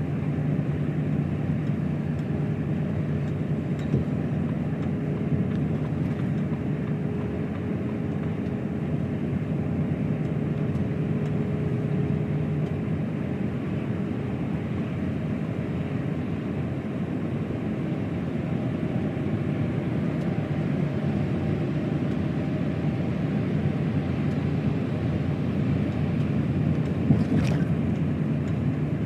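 Truck driving at steady speed on a wet motorway: an even drone of the diesel engine and tyre noise, holding a constant pitch, with one sharp click near the end.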